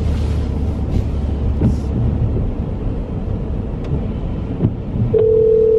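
Car cabin road and engine rumble while driving. Near the end, a steady telephone ringback tone starts as a phone call is placed.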